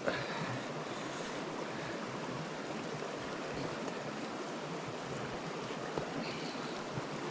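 Steady rushing outdoor background noise, even and unbroken, with a few faint clicks, the clearest about six seconds in.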